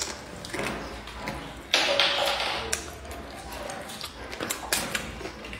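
Close-up eating sounds: a person chewing a mouthful of food, with light clicks of wooden chopsticks against the bowl. There is a louder, noisier burst of eating noise about two seconds in.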